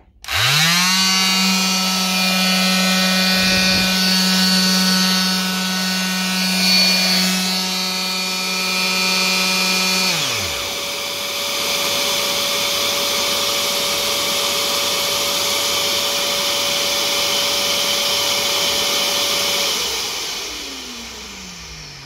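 A triangular detail sander switches on and its motor whines up to a steady hum. A couple of seconds later the Bort BSS 1220 Black construction vacuum starts by itself through its pass-through socket and runs with a steady rushing sound. About ten seconds in the sander is switched off and spins down, while the vacuum runs on alone for about ten seconds more to suck out the remaining dust, then shuts off and winds down near the end.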